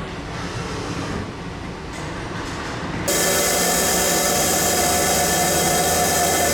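Steady noise of a 5-axis machining center cutting S45C steel. About three seconds in, it switches abruptly to a much louder, steady cut with a high whine.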